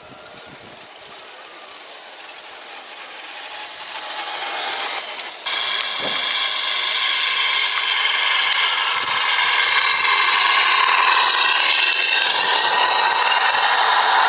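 Radio-controlled scale model trucks driving toward the camera: a steady high-pitched mechanical whine with rattling that grows louder, jumping up sharply about five seconds in.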